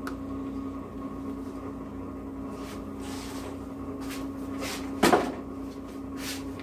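Kitchen handling sounds: a few short swishes from about two and a half seconds in and a louder knock about five seconds in, over a steady low hum.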